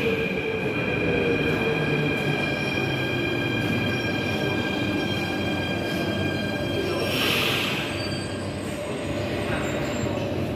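Metro train pulling into an underground station and slowing: a steady high brake squeal of several tones, with a lower motor whine falling in pitch over the first few seconds. A short burst of hiss comes about seven seconds in.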